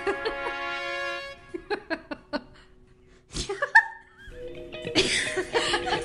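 Background music that breaks off for a moment about halfway through, with a sharp thump in the gap, then resumes with a burst of laughter near the end.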